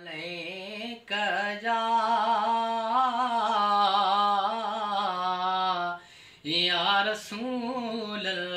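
A man singing a Sindhi devotional naat unaccompanied, drawing out long held notes with a wavering pitch. He breaks off briefly about a second in and again around six seconds in.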